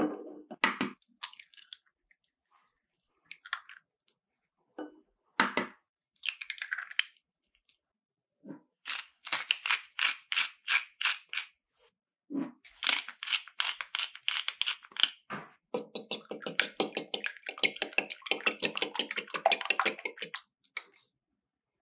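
Eggs cracked against the rim of a bowl, a few separate sharp knocks, then beaten in the bowl with quick rhythmic strokes that run nearly without a break in the second half.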